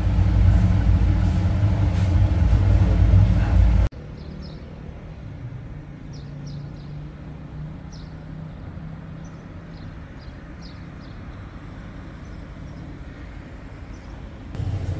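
A loud, steady low rumble for about four seconds, then an abrupt cut to quieter city-street ambience: a distant traffic hum with a few faint, short high chirps.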